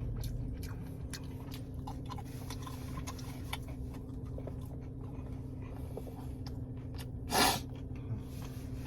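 Close-up chewing of breaded mozzarella cheese bites, with many small mouth clicks and smacks over a steady low hum. About seven seconds in there is a brief, loud hiss of noise.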